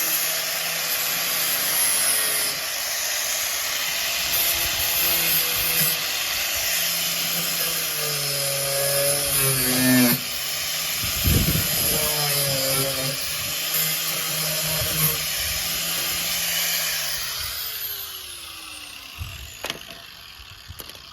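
Handheld power grinding tool running on the Beetle's body metal, its pitch shifting as it works. Near the end it is switched off and winds down with a falling whine.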